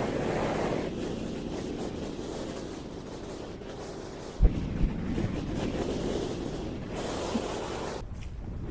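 Strong gusting wind buffeting the microphone, a rushing rumble that swells and eases, with one brief low thump about four and a half seconds in.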